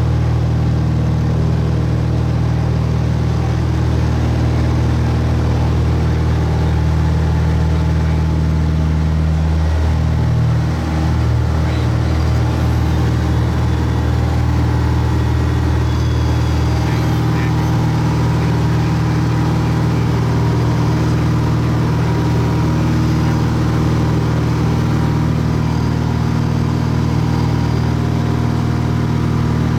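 Small plane's piston engine and propeller running steadily, heard from inside the cabin, with a slight shift in pitch about ten seconds in.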